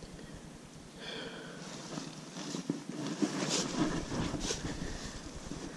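Rustling and swishing of tall grass and plants brushed by a person moving through them on foot, growing louder about two seconds in, with sharp swishes near the middle.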